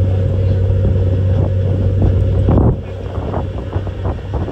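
Passenger ferry's engines running with a steady low drone, with wind buffeting the microphone. The drone and wind fall off noticeably a little over halfway through.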